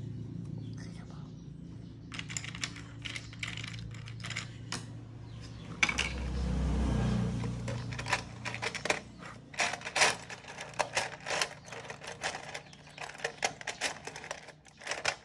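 Plastic Lego bricks clicking and clattering as a small hand rummages through a box full of them, many quick irregular clicks. A low rumble joins in for a second or two about six seconds in.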